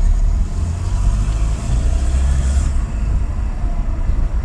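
Peugeot 207 on the move, heard from inside the cabin: a steady low rumble of engine and road noise under a light even hiss.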